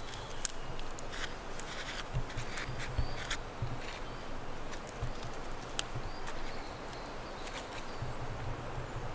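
Small dry twigs crackling and snapping as they are handled, a string of irregular sharp clicks with a few dull knocks beneath.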